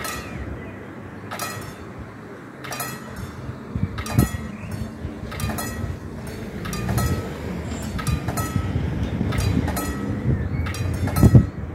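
Level-crossing warning bell striking about once every 1.3 seconds while the crossing's red lights are on, signalling that the barriers are about to lower for an approaching train. Underneath runs a low rumble that grows through the middle, with a loud knock near the end.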